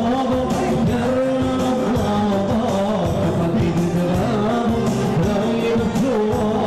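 Live Assyrian khigga dance music: a male singer through a microphone and PA over a steady dance beat, with a sustained melodic backing.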